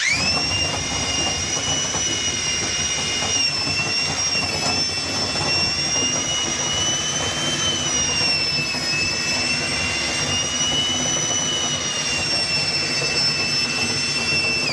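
Battery drill running at speed as it spins a dryer vent cleaning brush on flexible rods inside the duct. Its whine rises sharply as it spins up at the start, holds with slight dips in pitch under load, and falls as it winds down at the end.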